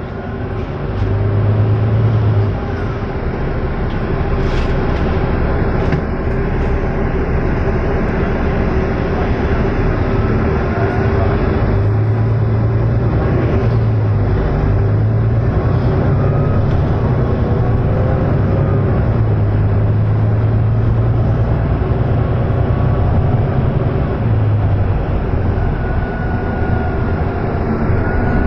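Volvo B9TL bus in motion, heard from inside the passenger cabin: its 9-litre six-cylinder diesel engine runs under road noise, with a low hum that swells several times as the engine pulls.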